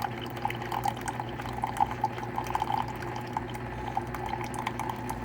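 Chulux single-serve K-cup coffee maker dispensing freshly brewed coffee into a cup: a thin stream of liquid trickling and dripping, with a steady low hum underneath.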